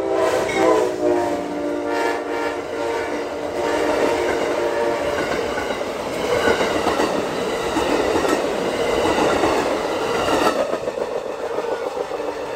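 Amtrak Silver Star passenger train passing a level crossing at speed. The diesel locomotive's horn drops in pitch as it goes by and then blows again for about three seconds. The rush and rattle of the passenger cars follows and stops suddenly about ten seconds in.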